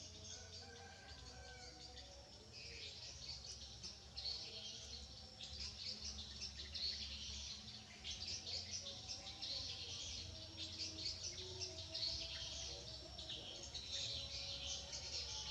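Many small birds chirping continuously, a dense chatter of short high calls that grows busier a few seconds in, over a faint steady low hum.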